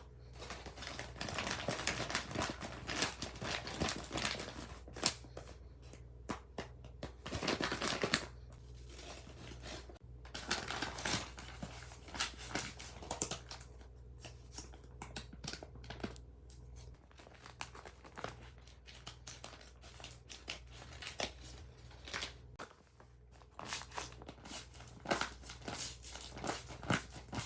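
Paper and tape crinkling and tearing as a handmade paper blind bag is opened and the paper squishy inside is handled, in dense spells of rustling with sharp crackles between.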